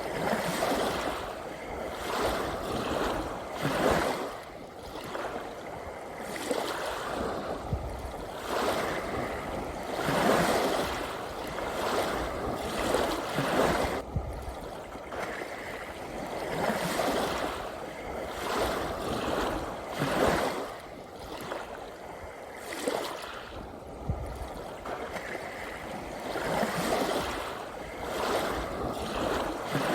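Sea waves washing onto a shore, the noisy wash swelling and ebbing every two to three seconds.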